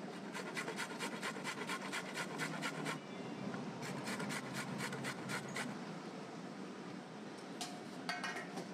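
Raw carrot rubbed up and down a stainless steel box grater: quick rasping strokes, about six a second, in a long run, then a second run after a short pause.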